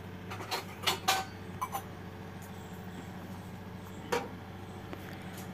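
Metal kitchenware being handled as dough is moved from a parat into a bowl: a few light clinks and knocks, most in the first two seconds and one more about four seconds in, over a steady low hum.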